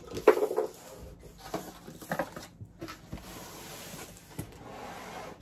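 Cardboard scraping and rustling as a flat, taped cardboard box is slid out of a larger shipping box: irregular rubs and knocks at first, then a steadier sliding rush in the second half.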